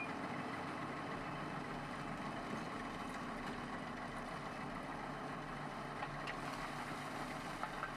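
Ruston-Bucyrus RB38 cable-operated excavator running steadily as it works a load of soil.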